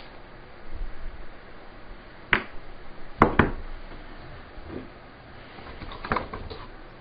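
Doussie-wood shell-holder blocks and shotgun shells knocked and set down on a workbench. There is a sharp knock a little after two seconds, two more in quick succession about a second later, and a cluster of lighter clacks near the end.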